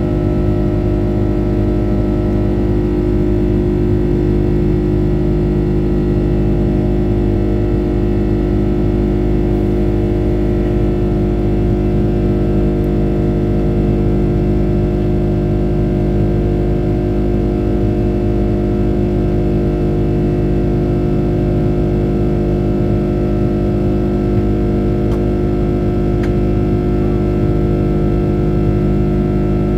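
Rolls-Royce Trent 700 turbofan engine of an Airbus A330-200 at thrust while climbing after takeoff, heard inside the cabin by the window. It makes a loud, steady drone of many held tones over a deep rumble.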